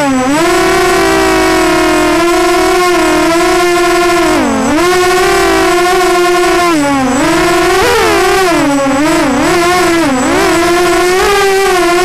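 Walkera Runner 250 Advance quadcopter's brushless motors and propellers whining steadily, heard from a camera mounted on the drone. The pitch dips briefly and climbs back several times, about every two to three seconds, as the throttle changes.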